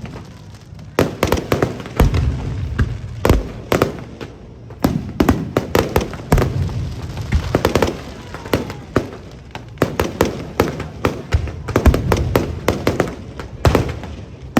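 Fireworks display going off: a rapid, continuous string of sharp bangs and crackling bursts, several a second.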